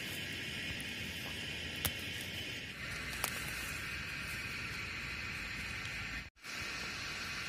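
A steady high hiss, with a couple of faint snaps as tender shoots of leafy greens are picked by hand. The sound drops out briefly about six seconds in.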